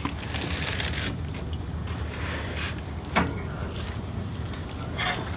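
Handling sounds as a brisket is lifted from a sheet pan and laid on a kamado grill's cooking grate: a few short knocks and clicks over a steady low hum.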